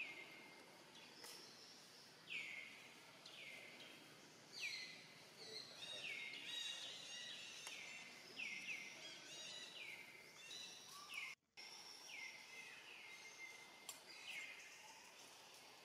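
Faint birdsong: a bird repeats short calls that sweep downward in pitch, about one a second, with fainter chirps from other birds around them. The sound cuts out for a moment about eleven seconds in.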